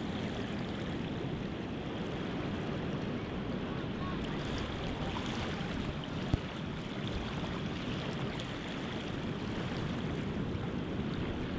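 Steady rush of wind and sea water around a boat on the open ocean, with one sharp click about six seconds in.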